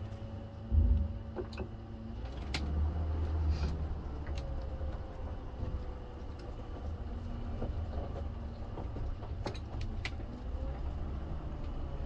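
Motorhome driving slowly on a gravel dirt road, heard from inside the cab: a steady low engine and road rumble with scattered rattles and clicks, and one heavy thump about a second in.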